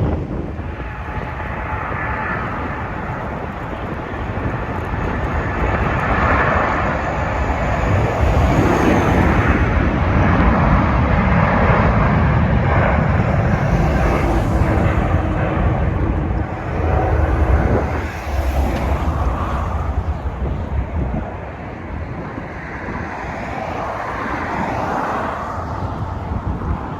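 Jet airliner's engines passing, a roar that builds, stays loudest for several seconds in the middle and then fades, with strong wind buffeting the microphone.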